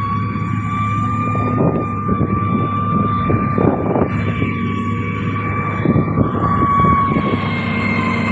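Heavy diesel road-construction machine running steadily, a low engine drone under a steady high-pitched whine that drifts slightly in pitch, with scattered knocks and rattles.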